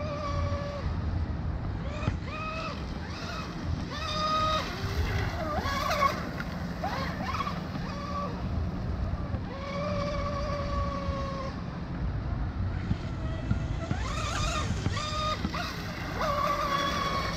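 Electric RC rigger boat running fast on 6S power: a whining motor tone that comes and goes several times, sometimes held steady and sometimes sliding in pitch as the boat passes, over a steady low rumble.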